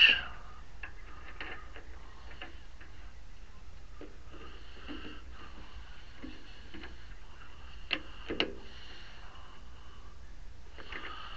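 Light metal clicks and taps of hand work at a metal lathe, the chuck key and small tooling being handled, with two sharper clicks about eight seconds in.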